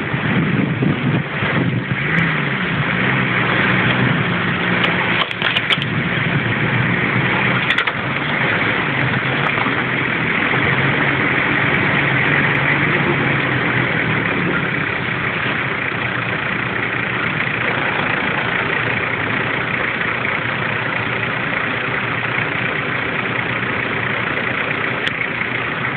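Off-road 4x4's engine running steadily at low speed, heard from inside the cab as it crawls along a rutted muddy track, with a few sharp knocks and rattles from the bumpy ground.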